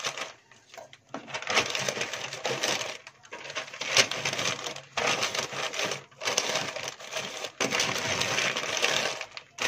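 Sheets of newspaper rustling and crinkling as they are folded and pressed by hand around a wrapped bundle, in bursts with short pauses between.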